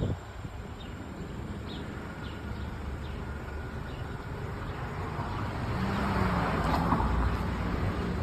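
Outdoor street traffic noise: a steady low rumble, with a vehicle approaching and passing by about six to seven seconds in. A few faint high chirps sound in the first few seconds.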